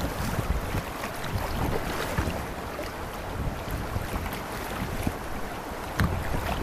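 Creek water rushing and splashing around a moving kayak, with wind buffeting the camera's microphone as a low rumble, and a sharp hit near the end.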